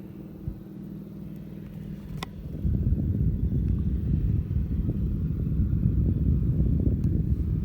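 Massey Ferguson 390 tractor's diesel engine running steadily with a single click about two seconds in; about two and a half seconds in it turns louder and rougher, a low rumbling rattle that carries on.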